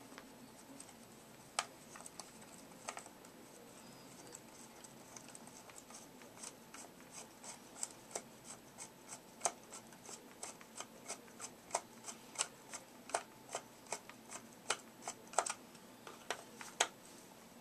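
Sharp clicks and taps of hard plastic as a Swivel Sweeper head is worked apart by hand: a few scattered at first, then two or three a second from about six seconds in.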